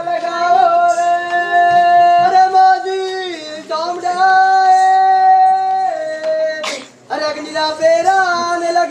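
A single voice singing a folk melody in long held notes, gliding between phrases. The singing breaks off briefly about seven seconds in with a sharp click, then carries on.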